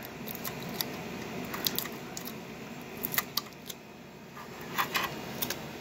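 Strip of tape being peeled and handled on a monitor's sheet-metal board housing: a few scattered light clicks and crinkles over a steady low hiss.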